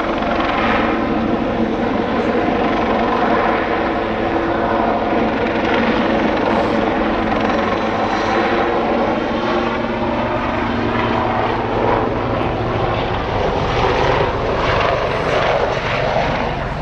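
Two Lynx-family naval helicopters flying a display, their turbines and rotors making a loud, steady drone. The pitch bends gently as they manoeuvre.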